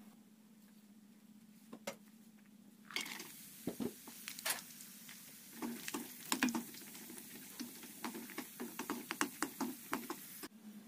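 Cashews and raisins sizzling as they fry in hot ghee in a kadai. The sizzle starts about three seconds in and cuts off near the end. A metal spoon clicks and scrapes against the pan many times as it stirs the nuts.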